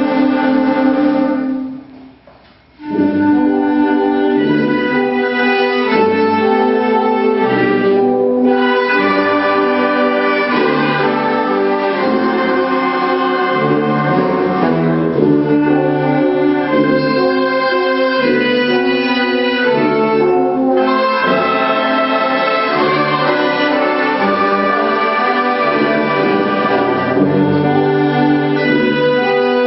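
Municipal wind band playing live, a full ensemble of sustained brass and other wind instruments; the music stops briefly about two seconds in, then starts again.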